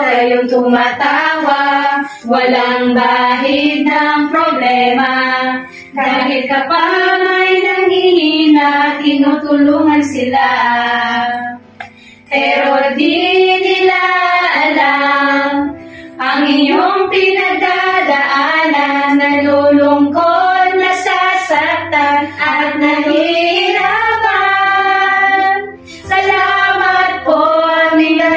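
A group of women singing a song together, line after line, with short breaks between phrases.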